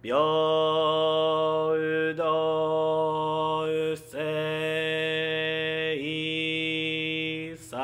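A single male voice chanting a Buddhist liturgy, holding long drawn-out notes. There are four sustained tones, each sliding up into pitch, with brief breaths between them.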